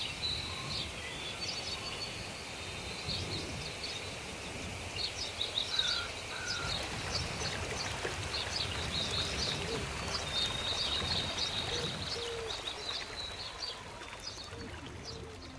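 Forest ambience: many small birds chirping high and repeatedly over a steady rushing background.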